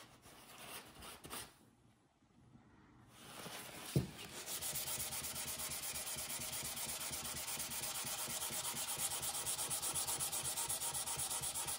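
Brass seal stamp rubbed by hand on wet 400-grit wet/dry sandpaper: a steady scraping rub in rapid, even strokes, starting about four seconds in just after a single knock. The sanding is smoothing off the burrs and sharp edges left by laser engraving.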